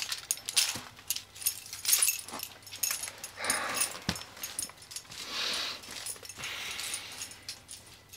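A man's breathy exhales or sighs, three of them in the second half, after a stretch of clothing rustle and small clicks.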